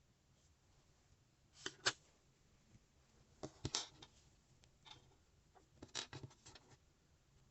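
Lego Technic plastic pieces being handled and pressed together: sharp plastic clicks in three short clusters, a couple of seconds apart.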